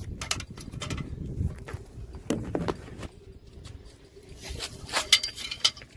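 Handling noise close to the microphone: scattered clicks, scrapes and knocks, with a cluster of sharper knocks near the end, over a low rumble.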